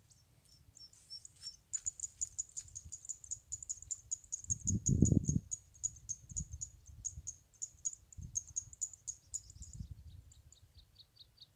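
A rapid, even train of short high-pitched chirps, about five a second, from a small creature calling. Near the end a lower-pitched chirping series takes over. Low rumbling bursts come and go underneath, the loudest about five seconds in.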